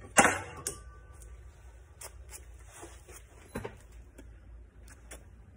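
A sharp metallic clank just after the start, then faint scattered clicks and knocks as the freshly drilled steel knife blank is handled, over a low steady hum.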